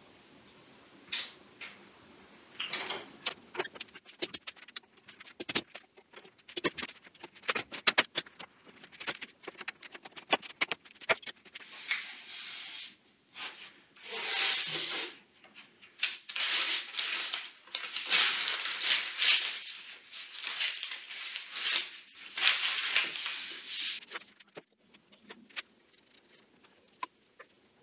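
Metal sash clamps and a G-clamp being undone and taken off a glued-up board: a run of clicks, knocks and clanks. From about halfway in come a dozen seconds of louder, rough scraping strokes.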